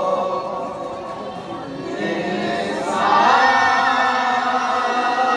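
Naat sung by a group of male voices without instruments, in slow, drawn-out phrases. About three seconds in the voices rise to a higher held note.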